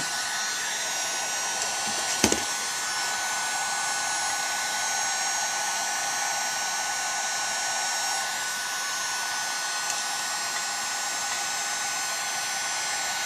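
Handheld heat gun blowing steadily, its fan and hot-air hiss heating an aluminium chainsaw crankcase half around the bearing seat so the case expands for assembly. A single light click about two seconds in.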